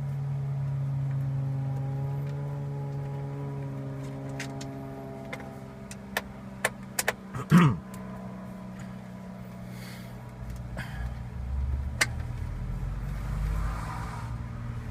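Sharp clicks and knocks of a hand Torx driver and the bolts being worked out of plastic console trim, with a short squeak about halfway through that is the loudest sound. Under it a steady low hum fades out, and a low rumble comes in near the end.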